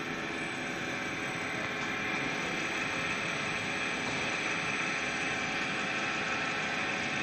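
RYQ-3 turbo balancing machine running, its motor and belt drive spinning a turbocharger rotor for an unbalance measurement: a steady mechanical whir with a high whine on top, a little louder about two seconds in.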